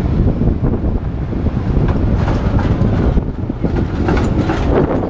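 Wind rumbling on the microphone of a camera on a moving bicycle, over city street traffic. A tram runs close alongside in the latter part.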